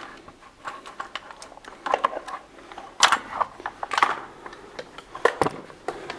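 Footsteps scuffing on a gritty floor, with small irregular clicks and a few heavier steps about a second apart.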